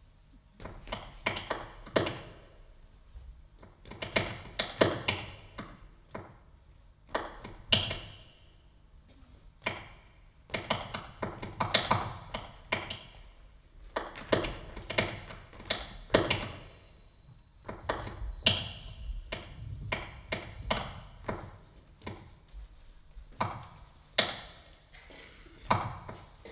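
Irregular clusters of sharp knocks and taps on hard objects, coming every second or two, a few of them followed by a short high ringing.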